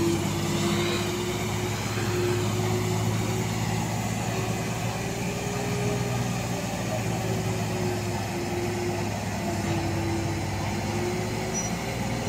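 JCB crawler excavator's diesel engine and hydraulics running steadily as it works, a low drone with a higher whine that rises and falls slightly.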